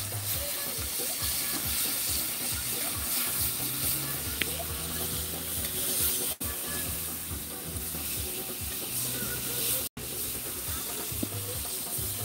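A metal spoon stirring shrimp and green seasoning around a stainless steel frying pan, with the food sizzling steadily as it fries over an open fire.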